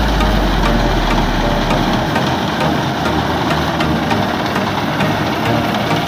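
Combine harvester running while it cuts rice: a steady mechanical din from the engine and the header's drive chains, pulleys and reel. A deep low rumble underneath fades out about two seconds in.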